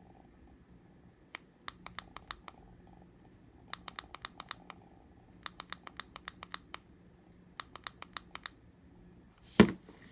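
The small push button on a portable power bank is clicked over and over in four quick runs, about seven clicks a second, while someone tries to switch it off or reset it. A louder knock of handling comes near the end.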